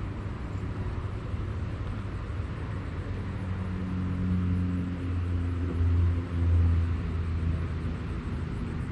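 Low engine hum of a motor vehicle running nearby, steady and swelling louder about six seconds in before easing back.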